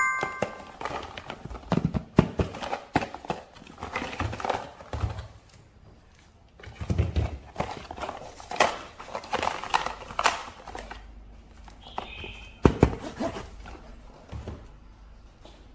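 Irregular taps, clicks and knocks with rustling, from plastic packaging and toy figures being handled and unboxed.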